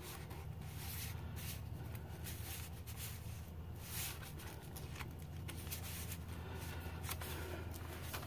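Faint paper rustling and sliding as a tag is drawn out of a paper pocket and the journal's pages are handled, over a steady low hum.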